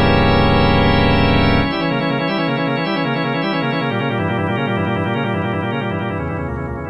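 Organ music: a loud sustained chord, then from about two seconds in fast runs of notes up and down, getting quieter near the end.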